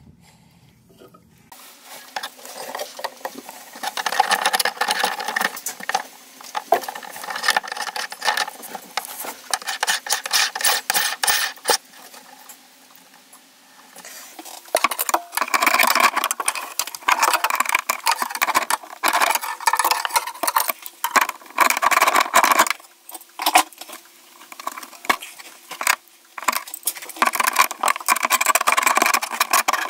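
Bursts of rapid scraping, clicking and clinking as a brass shower drain flange, its gaskets and metal tools are handled and worked, with short quieter pauses between bursts.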